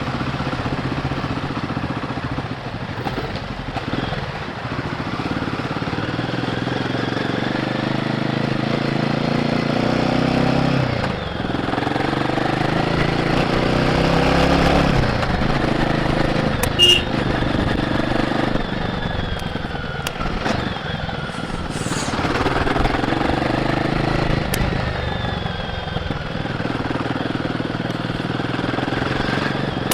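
Royal Enfield Guerrilla 450's single-cylinder engine on its stock exhaust, heard from the rider's seat while under way: the revs climb and drop several times as it accelerates and shifts, with wind rushing past. A brief sharp high sound rises above it about seventeen seconds in.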